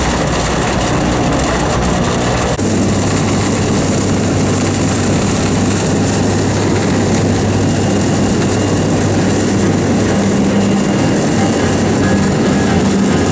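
Light aircraft's engine and propeller drone heard inside the cabin, loud and steady with a low hum. The sound changes abruptly about two and a half seconds in.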